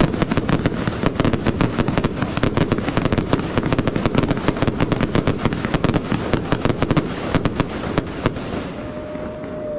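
Fireworks crackling: a dense, rapid run of sharp pops that thins out in the last second or so, when a short steady whistling tone sounds and then falls in pitch.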